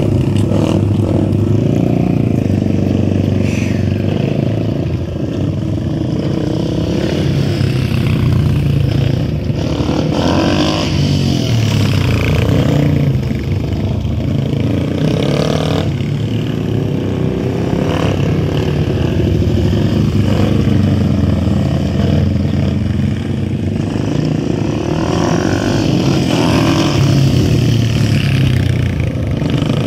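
Engines of several small motorcycles running on a practice course, the pitch rising and falling as the riders accelerate and ease off around the cones.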